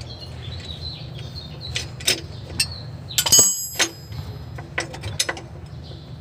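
Steel hand tools clinking and knocking against the metal underside of the vehicle's transmission. It is a scattered series of sharp clanks, and the loudest, about three seconds in, rings briefly. A steady low hum runs underneath.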